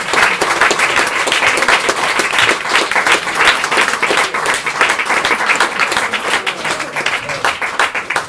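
Audience applauding: many hands clapping at once in a dense, continuous run.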